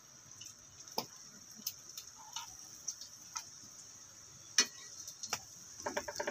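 Metal kitchen tongs clicking and tapping as they handle pieces of freshly fried fish on a paper towel: scattered sharp ticks, then a quick run of clicks near the end, over a faint steady high hiss.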